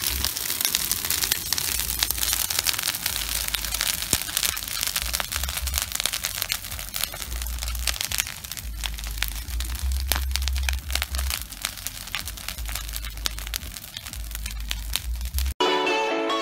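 Bonfire of leafy branches crackling and popping with dense, irregular snaps; music cuts in suddenly near the end.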